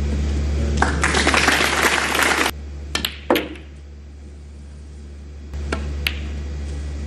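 A short burst of audience applause that cuts off abruptly, followed by a few sharp clicks and then a quiet arena with a steady low hum.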